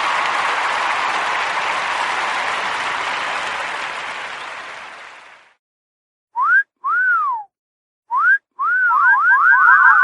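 Applause fading out over the first five seconds. After a moment of silence comes a whistle sound effect: a few short rising and falling whistled notes, then a quick run of up-and-down whistles near the end.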